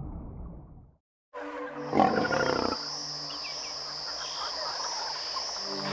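After a brief silence, an animal gives one loud, short growl about two seconds in. Under it run a steady high-pitched whine and low held tones.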